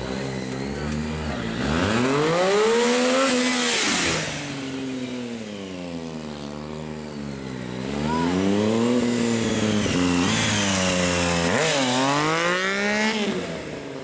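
Triumph stunt motorcycle's engine revved hard, its pitch sweeping up and down again and again as the rider works the throttle. It is louder in two stretches, from about two to four seconds in and from about eight to thirteen seconds in.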